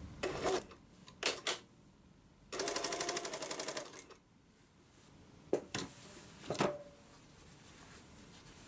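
Industrial lockstitch sewing machine stitching in bursts: two brief runs, a longer run of about a second and a half in the middle, then two more brief runs.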